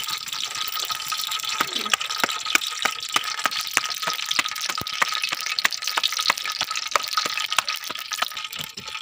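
Hands kneading a stiff dough of flour, semolina, ghee and sugar syrup on a metal platter: irregular soft slaps and squelches, several a second, over a steady hiss.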